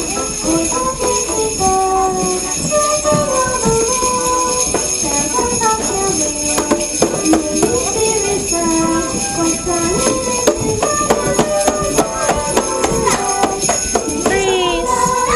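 Sleigh bells jingling continuously, with a tune going on underneath.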